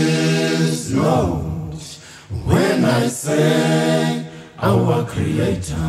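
Unaccompanied singing: drawn-out wordless vocal notes that slide up and down in pitch, in phrases of one to two seconds with short breaks between them.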